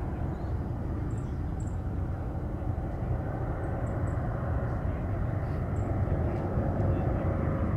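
Boeing 737 MAX 8 on final approach, its CFM LEAP-1B turbofans a steady low engine noise that grows a little louder toward the end as the jet comes closer.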